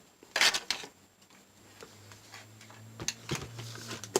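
Handling noise of small hard plastic parts: a quick cluster of sharp clicks and knocks about half a second in, then a few quieter clicks and taps near the end.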